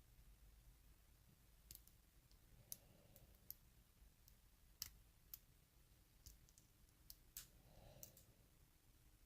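Faint, irregular clicks of a lock pick and tension wrench working the pins inside a Burg Wachter brass padlock during picking.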